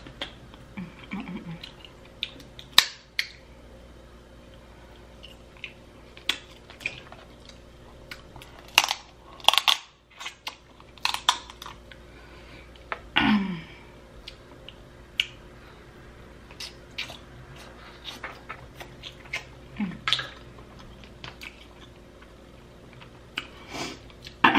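Snow crab leg shells being cracked and pulled apart by hand, with irregular sharp cracks and snaps alongside the wet mouth sounds of eating. Two short hums come around the middle and later on.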